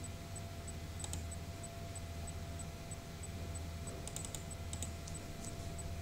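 A few soft clicks at a computer desk over a steady low hum: one click about a second in, then a short run of clicks around four to five seconds in.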